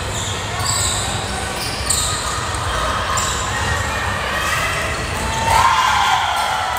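Indoor volleyball rally on a hardwood gym court: sneakers squeaking on the floor and a sharp ball strike about two seconds in. A loud falling shout from a player comes near the end, when the rally ends.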